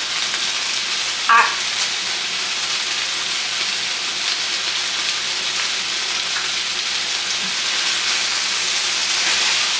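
Chicken and vegetable stir fry sizzling steadily in a hot pan, with one brief sharper sound about a second and a half in.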